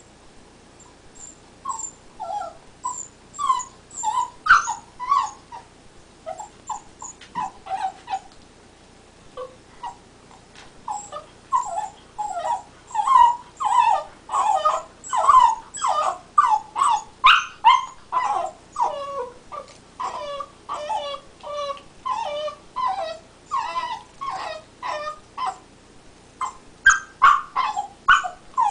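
Black Labrador retriever puppy whimpering and whining in a long string of short, high cries while it chews, with a pause of about two seconds a third of the way in. The owners put the noise down to teething, though it does not seem to come from pain.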